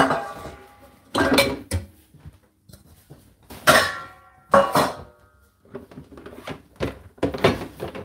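Dishes, plastic tubs and metal bowls being set into a dishwasher's wire racks: a string of separate clatters and clanks, a couple near the middle followed by a brief metallic ring.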